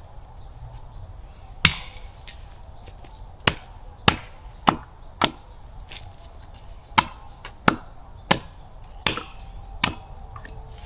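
Repeated sharp strikes of a tool on wood, about ten blows at uneven intervals of roughly half a second to a second.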